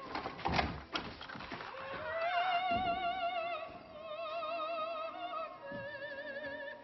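Operatic singing: a high voice holding long notes with wide vibrato over music. Two sharp knocks cut in, about half a second in and again just before three seconds.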